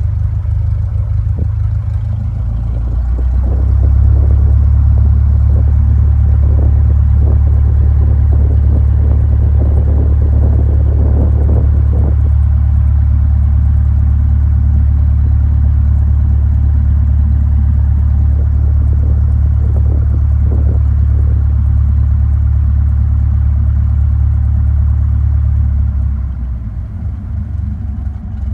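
Light plane's piston engine and propeller heard from inside the cabin while taxiing: a steady low drone that grows louder about three seconds in and eases off near the end. Short rattles and knocks come through now and then.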